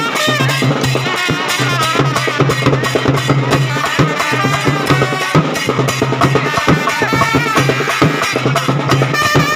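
Papare band playing live and loud: trumpets play the tune over fast, driving beats on large double-headed drums struck with sticks, with a low held note pulsing underneath.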